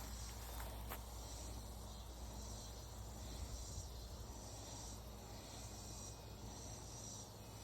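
Insects chirring in the background: a faint, high-pitched drone that pulses about once a second, over a low steady hum.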